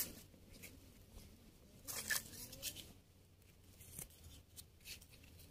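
Faint scraping and cutting of a small knife blade through a wild mushroom's stem base and the dry soil around it: a short scratchy run about two seconds in and a few light ticks near four and five seconds.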